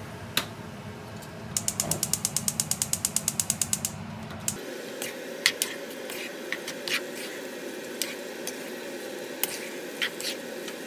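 A quick run of even ratcheting clicks, about eight a second for a little over two seconds, then scattered single light clicks and taps.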